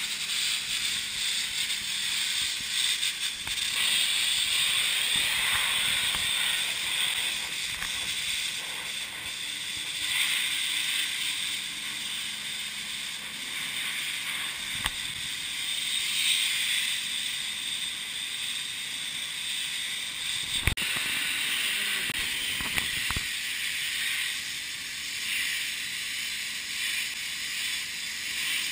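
High-pressure washer lance jetting water onto a ship's cooler tube bundle: a steady hissing spray that swells and eases as the jet moves over the tubes. A couple of sharp knocks come about two thirds of the way through.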